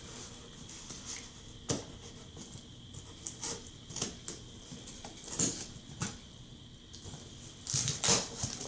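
Scissors cutting packing tape along a cardboard box seam: irregular short snips and crackles of tape and cardboard, with a louder rustle of tape and cardboard being pulled near the end.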